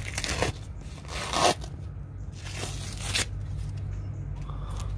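Plastic sheeting and green masking tape being peeled off an epoxy repair on a boat hull, a few short crackling tearing and crinkling bursts, the loudest about a second and a half in. This is the covering coming off to uncover the epoxy repair.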